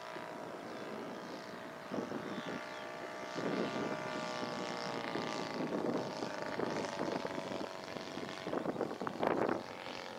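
Scale model NDN Firecracker flying overhead: a steady propeller-driven engine drone with a slight drift in pitch. Gusts of wind buffet the microphone from about two seconds in, strongest near the end.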